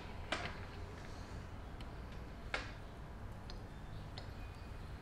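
Metallic clicks from a hand-cranked chainsaw-chain rivet spinner being worked: two sharp clicks, about half a second in and about two and a half seconds in, with faint ticks in between and after, as the tool bit swages a chain rivet into a domed head.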